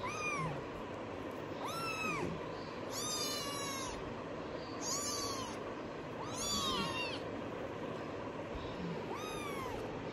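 Kitten mewing: about six short, high-pitched mews, each rising and falling, roughly every second and a half.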